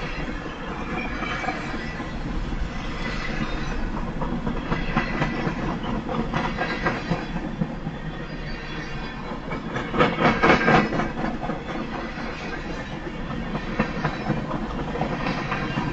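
CSX freight train's covered hoppers and tank cars rolling steadily past, wheels clicking over the rail joints, with a cluster of louder clacks about ten seconds in.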